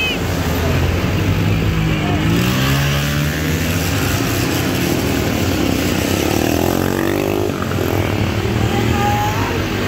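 Several motorcycle engines running together at low revs. Engine pitch rises and falls twice, around two seconds in and again around six to seven seconds in, as bikes are revved.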